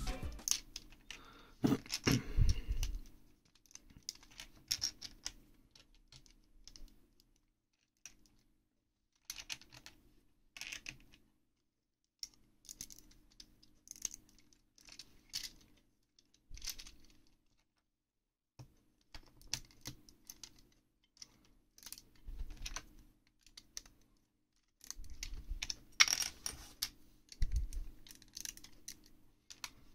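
Vintage 1977 LEGO Technic plastic bricks clicking and clattering as they are handled and pressed together. The clicks come in irregular clusters with short quiet pauses between them.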